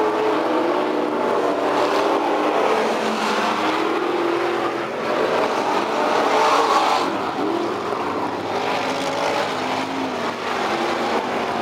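Dirt-track street stock race cars running hard around the oval, several engines overlapping, their pitch rising and falling as the cars pass through the turns.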